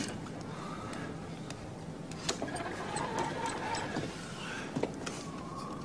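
Field telephone's hand-crank magneto being turned to ring through: a low steady whirr with scattered clicks, with faint voices behind it.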